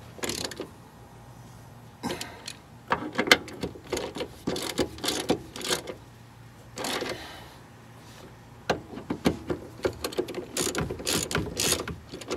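Hand socket ratchet tightening the bolts of a rear sway bar mounting bracket, in several runs of rapid clicks with short pauses between.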